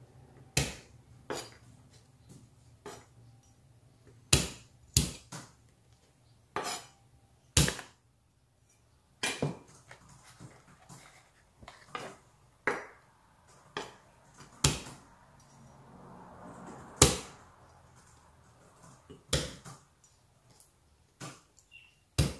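Chef's knife knocking on a wooden cutting board as garlic cloves are chopped: single sharp knocks at an uneven pace, roughly one a second.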